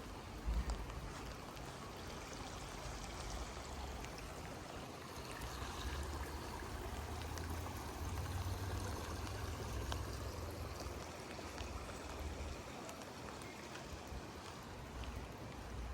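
Steady rain falling, an even hiss with some low rumbling, and a short low thump about half a second in.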